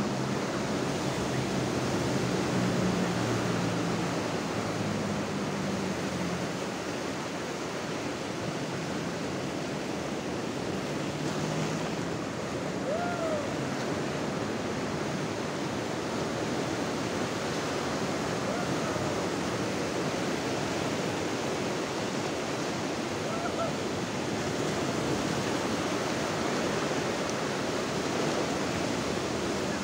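Ocean surf breaking and washing up over a shallow sandy beach: a steady rush of waves and foam.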